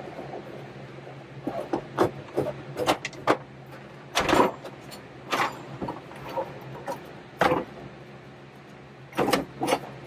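A small window air conditioner unit being worked out of a tight metal compartment: a run of irregular knocks, clunks and scrapes as its case is shifted and slid, over a steady low hum.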